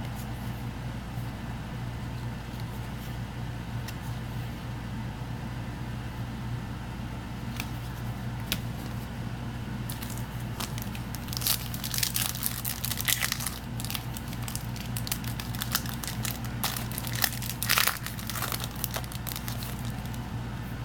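Foil trading-card booster pack wrappers crinkling and being torn open by hand, in a cluster of sharp crackles about halfway through, over a steady low hum.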